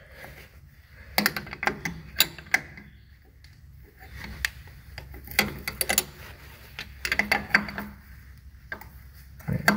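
Sharp metallic clicks and clinks of a 17 mm wrench on the steel fuel-line nuts of a diesel fuel injection pump, coming in scattered clusters of quick ticks.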